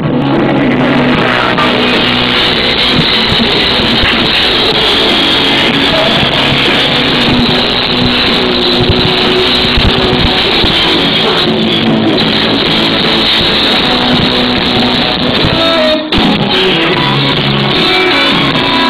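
Live rock band playing with electric guitar, loud and harsh through a phone's microphone, and dull with no high end. There is a brief dropout about sixteen seconds in.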